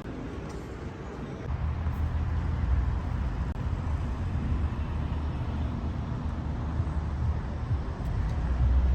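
Steady low rumble of outdoor background noise, getting louder about a second and a half in.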